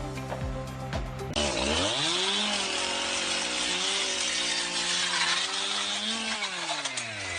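Background music, then about a second and a half in a power tool's motor spins up with a rising pitch, runs steadily with a loud hiss over it, and winds down near the end.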